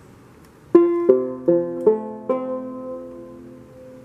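Fretless curly-maple minstrel banjo being plucked. After a short quiet moment, a run of five notes starts about a second in, and the last note is left ringing and fading.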